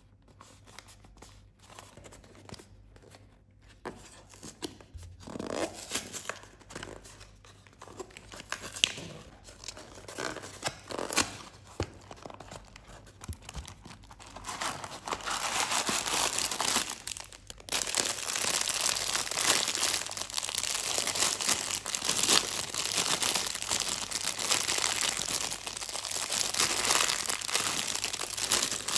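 A cardboard carton is torn open by hand: after a quiet start, sharp tearing and rustling sounds begin about five seconds in. From about halfway, there is dense, steady crinkling of the thin plastic inner bag of fudge being handled.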